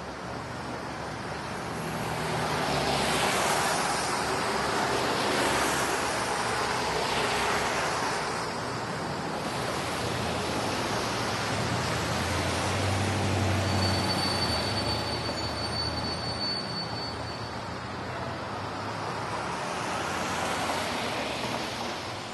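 Street traffic: vehicles passing one after another, each swelling and fading, with an engine's low hum and a thin high steady whine of a few seconds about two-thirds of the way through.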